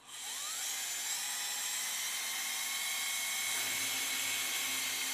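Surgical power drill spinning a 4.3 mm drill bit to drill a bicortical hole through bone: a steady high-pitched whine that starts suddenly, its pitch rising briefly as the drill spins up.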